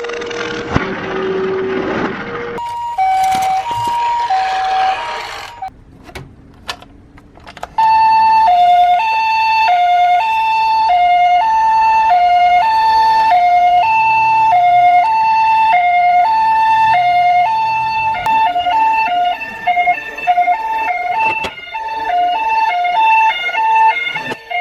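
Two-tone ambulance siren of the Japanese hi-lo 'pee-po' kind, switching back and forth between a higher and a lower note. It sets in loudly about eight seconds in and alternates faster in the last few seconds. Before that there is a few seconds of hiss, a short run of the same two notes, and some clicks.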